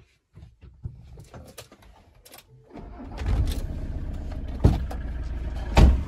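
Camping car's engine starting up about three seconds in, the rumble rising quickly and then settling into a steady idle, after a few small clicks and rattles. Two sharp knocks sound over the running engine near the end.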